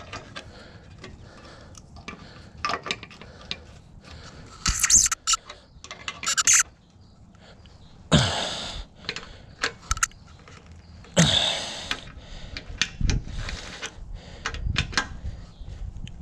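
Adjustable wrench clicking and clinking on the nuts of a steel spare wheel as they are tightened by hand, with a cluster of sharp metal clinks about five to six seconds in. Two hard, grunting breaths from the effort come about eight and eleven seconds in.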